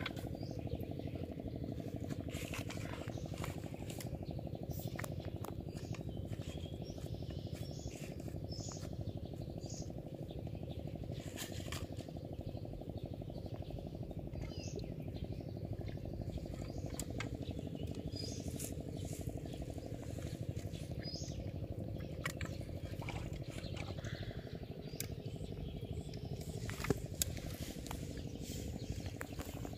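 Scattered light clicks and taps of bamboo fishing rods being handled and tied, over a steady low hum. A few short bird chirps and two sharper clicks come near the end.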